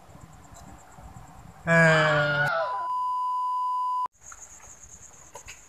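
A sudden loud pitched sound sliding down in pitch, followed by the steady high beep of a TV test-pattern tone, used as an edit transition effect. The beep holds for about a second and a half and cuts off suddenly.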